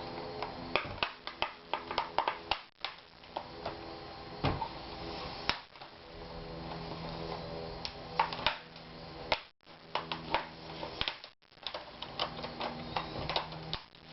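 Plastic screen bezel of an Asus X54C laptop being pried off by fingernail, its inner clips snapping free in many sharp, irregular clicks, over a steady low hum.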